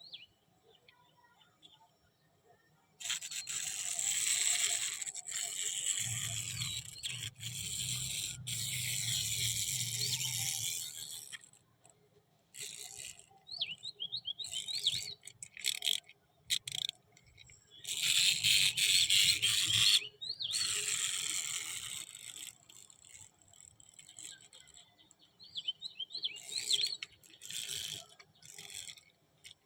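Plastic packaging of a Hello Kitty toy kitchen set rustling and crinkling as it is unboxed, in two long stretches with shorter bursts and small rattles between. Faint bird chirps come through in the pauses.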